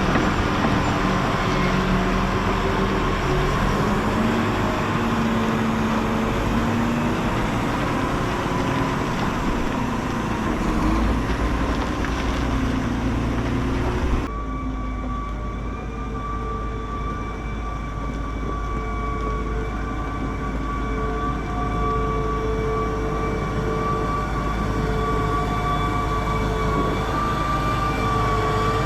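Vehicle engine running steadily. About halfway through the sound changes abruptly to a smoother hum with a few steady held tones.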